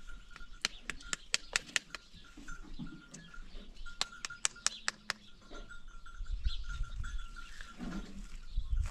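Goats bleating now and then, mixed with runs of sharp clicking knocks, several a second in the first half.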